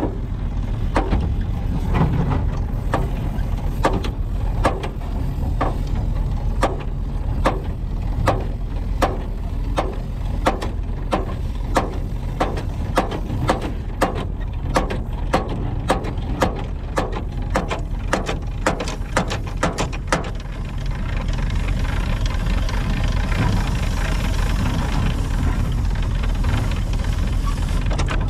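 A large vehicle's engine idling with a steady low hum, with sharp clicks at about two a second over it that stop about two-thirds of the way through, leaving a steadier hiss.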